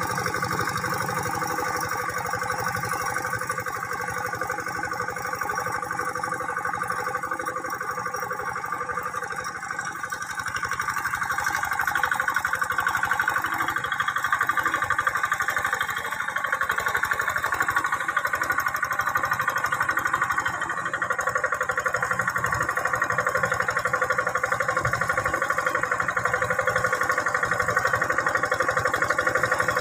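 Quick G600 hand tractor's single-cylinder diesel engine running steadily under load while it works a flooded rice paddy. It grows louder about twelve seconds in.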